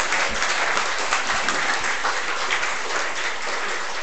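Audience applauding, many hands clapping at an even level throughout.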